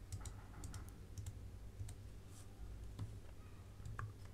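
Faint, irregular clicks of computer keyboard keys, a few keystrokes a second, as text is deleted, over a low steady hum.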